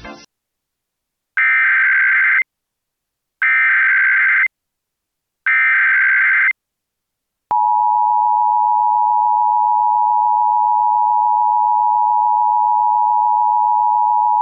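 Emergency Alert System broadcast signal: three identical one-second bursts of screeching digital SAME header data, then, about seven and a half seconds in, the steady two-tone EAS attention signal begins and holds.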